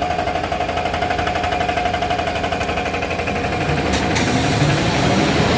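Toilet-paper rewinding machine running steadily, a constant mechanical hum with a fast, even clatter, and a sharp click about four seconds in.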